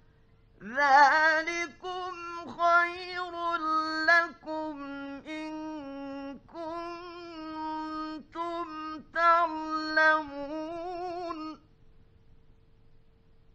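A male Quran reciter's voice chanting one long, melodic recitation phrase in a high register, with held, ornamented notes, ending about two seconds before the end. A faint steady hum of the old recording runs beneath it.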